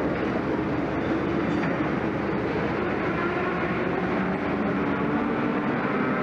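Several racing kart engines running together on the track: a steady drone with engine notes that drift up and down in pitch.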